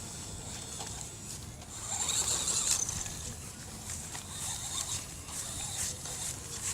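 Toy remote-control off-road car driving over rough ground: its small electric motor and gears whir, with scattered clicks and rattles, a little louder about two seconds in.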